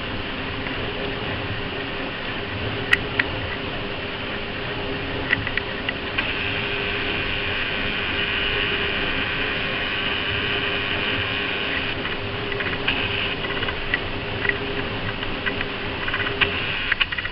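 Electric pedestal fan running with a steady whir and a constant low hum, a few small clicks and taps scattered over it.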